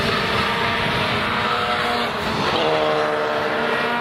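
Mazda Cosmo Sport's 10A two-rotor rotary engine running as the car comes down the straight toward the listener. Its note stands out clearly from about two and a half seconds in as the car draws close.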